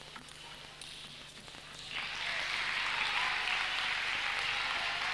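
Crowd in an arena bursting into steady applause about two seconds in, as a table tennis rally ends with a point won. A few faint clicks come before it.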